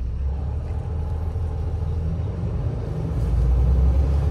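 Low, steady rumble of a moving coach bus heard from inside the passenger cabin, growing louder about three and a half seconds in.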